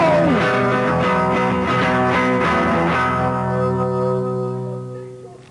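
Guitar music ending: a final strummed chord rings out and fades away over the last two seconds.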